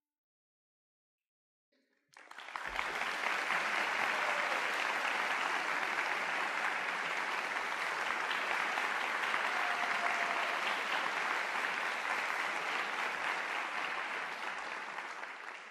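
Audience applause. It breaks out about two seconds in after a silence, swells quickly, holds steady and tapers off near the end.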